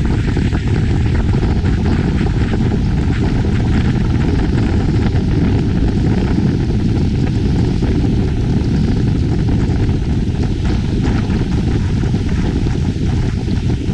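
Motorboat running steadily at speed: continuous engine noise mixed with rushing water from the wake and wind buffeting the microphone.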